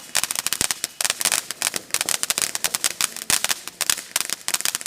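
Fireworks crackling: a rapid, irregular string of sharp pops and snaps that keeps going without a break.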